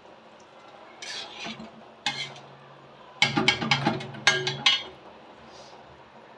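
A metal ladle clinking against a steel pan of kadhi: a single clink about two seconds in, then a quick run of sharp clinks between about three and five seconds.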